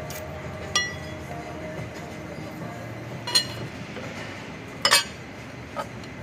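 Steel brake discs and splined shaft clinking against the housing as the brake pack of a JCB excavator is pulled out: four short ringing metallic clinks, the loudest a double strike about five seconds in.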